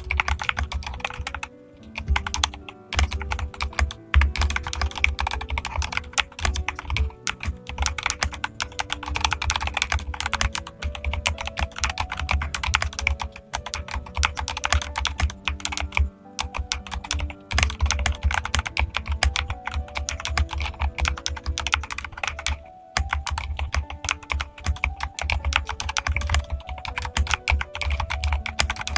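Fast, continuous typing on a mechanical keyboard, dense keystroke clicks with a deep low thud, broken by a few short pauses. A soft background tune plays underneath.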